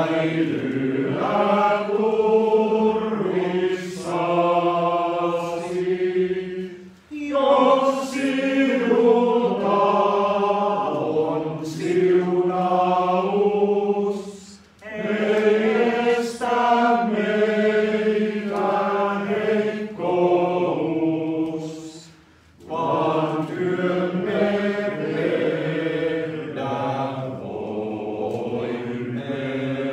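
Male choir singing a slow, chant-like hymn in four long phrases, with short breaks for breath between them, the last phrase fading out at the end.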